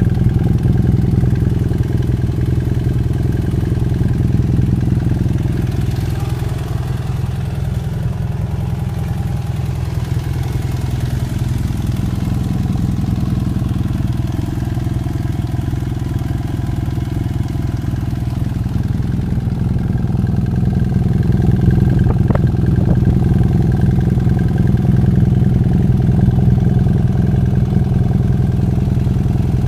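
BMW F800GS parallel-twin engine idling steadily through an aftermarket LeoVince carbon slip-on silencer.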